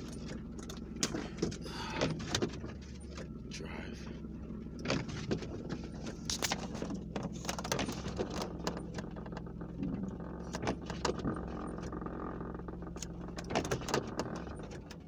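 Ford Escape engine idling steadily in park, with scattered sharp clicks and knocks throughout.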